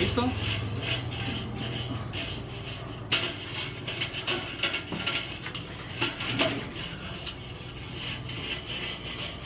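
Wire grill brush scrubbing the steel cooking grate of a hot charcoal kettle grill in repeated back-and-forth scraping strokes, scouring off grease left from an earlier cookout.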